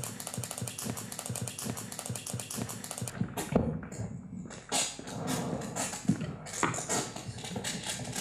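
Electronic noise from a live stage sound score: dense rapid clicking and crackle that cuts in suddenly, then breaks off after about three seconds into sparser, irregular clicks and crackles.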